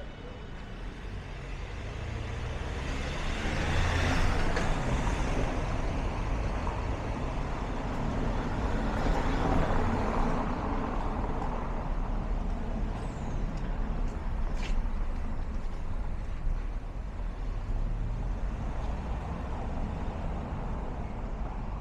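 Road traffic passing close by on a town street: a vehicle engine's low rumble, swelling to its loudest about four seconds in and again around ten seconds.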